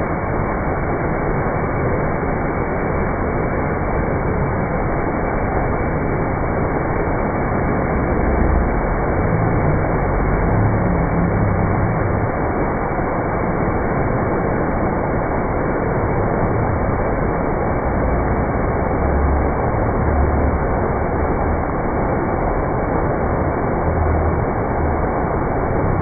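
Steady roar of the Manthokha waterfall, a tall cascade pouring down a rock face onto boulders, heard close by, with uneven low rumbling at times.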